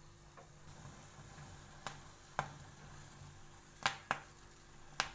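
Sharp, short clicks and pops, about six at irregular intervals over a low steady hum, as a guava is roasted and turned.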